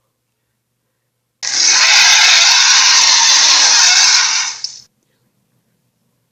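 A loud, harsh hiss lasting about three and a half seconds, made as a sound effect for a made-up eel monster. It starts abruptly just over a second in and cuts off just before the five-second mark.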